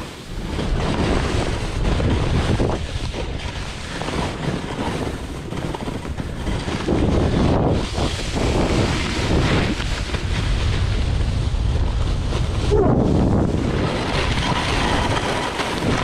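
Skis or snowboard edges scraping at speed over hard, refrozen snow crust that has not softened, a loud continuous scraping hiss that swells and eases with each turn, mixed with wind buffeting the microphone.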